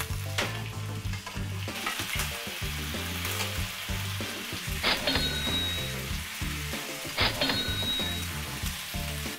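Skewered rice cakes and squid sizzling steadily as they fry in oil in a nonstick pan. Two short ringing clicks come about five and seven seconds in.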